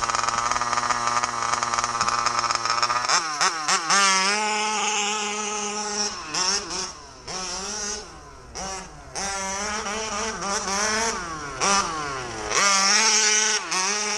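Small two-stroke petrol engine of a 1/5-scale MCD RC car holding a steady high rev for about three seconds, then revving up and down over and over as the car is driven, with short drops where the throttle comes off.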